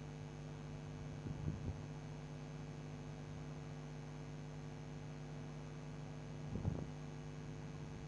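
Steady low electrical hum, a mains-type buzz in the recording, with two faint brief sounds, one about a second and a half in and one near the end.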